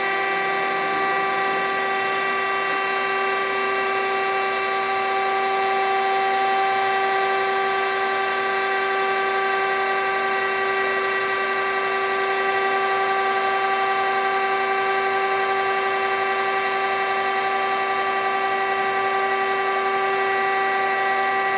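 K.O. Lee 6 x 18 hydraulic surface grinder running with its hydraulics switched on: the hydraulic pump and spindle motor make a steady, even whine, with no knocks or clunks.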